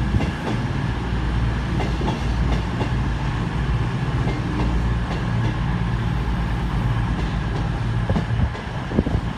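Class 221 Super Voyager diesel-electric unit with its underfloor diesel engines running in a steady low drone as the train comes into the platform.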